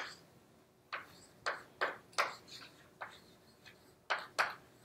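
A handful of short, faint taps, about six, spaced irregularly through a quiet pause over low room tone.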